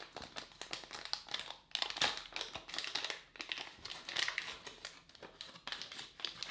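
Foil pouch of Instax Mini film crinkling as it is pulled open and the film pack is drawn out, in irregular bursts of crackles.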